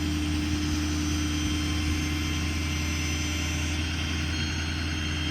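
Ford F550's 6.7 Power Stroke diesel running steadily with the PTO engaged, driving the hydraulic pump that powers the service crane: an even engine drone with a constant pitched whine over it.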